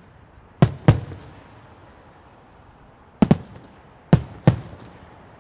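Aerial fireworks bursting: six sharp bangs in three close pairs, each fading with a short echoing tail.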